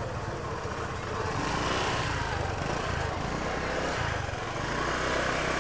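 Busy market crowd: many voices chattering at once over a steady low rumble, with no single voice standing out.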